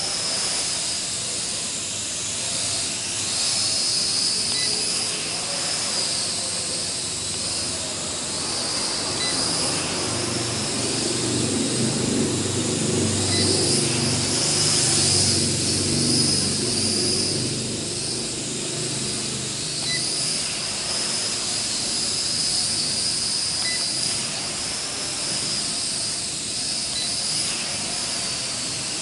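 Small L6036 quadcopter's motors and propellers buzzing with a high whine that swells and fades as it flies, over a steady hiss. A low rumble rises for several seconds in the middle.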